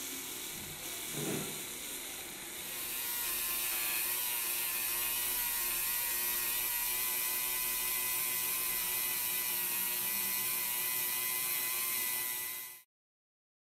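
Handheld rotary tool spinning a small abrasive polishing wheel, running with a steady high whine and hiss as it grinds and polishes the aluminium body of a hand tyre pump. A short scuff comes about a second in as the wheel meets a rubber block, and the sound gets louder around three seconds in as the wheel bears on the metal, then holds steady and stops suddenly near the end.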